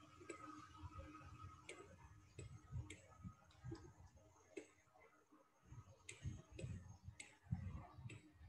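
Faint, irregular clicks and light taps from a stylus on a tablet screen as a fraction is handwritten, in near silence.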